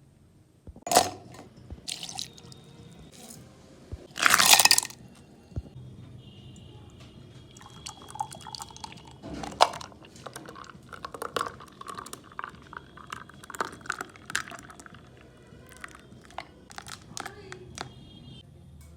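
Coffee-making utensils being handled: scattered knocks, clicks and clinks. About four seconds in comes a short, loud rush of noise lasting under a second.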